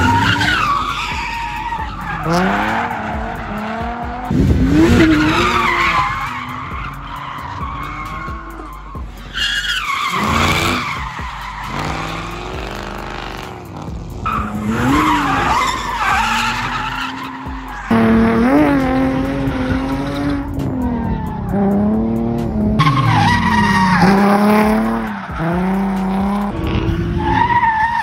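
Drift cars on track: engines revving up and down hard as they slide, over tyre screech from the skidding tyres, in several separate passes.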